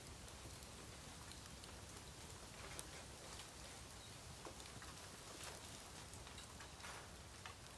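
Bonfire of dead bamboo crackling faintly: scattered small pops and ticks over a soft hiss.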